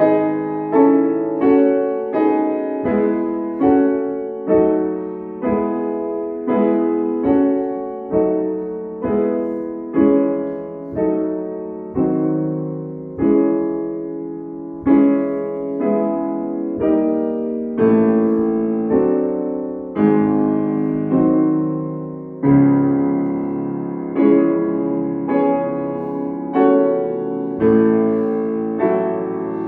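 Steinway & Sons grand piano played solo at a slow, even pace. Notes and chords are struck about once a second, and each rings and fades before the next.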